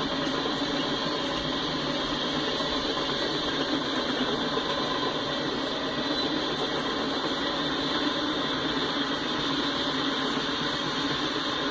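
Freight cars rolling past at steady speed: a constant rumbling noise of steel wheels running on the rails.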